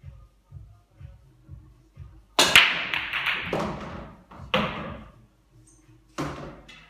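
A 9-ball break: the cue ball smashes into the rack with a loud, sharp crack about two and a half seconds in, then the balls clatter and roll across the table as it dies away. Further single ball clacks follow about four and a half and six seconds in.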